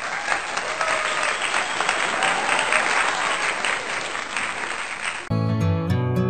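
Applause, a dense patter of many hands clapping, which cuts off suddenly about five seconds in as strummed acoustic guitar music begins.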